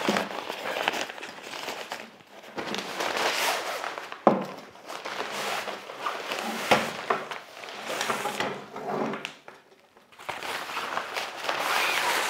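Nylon carry bag rustling as it is opened and handled, with the softbox's fabric rustling as it is pulled out. A few knocks come as the collapsed steel-rod frame is handled on the table.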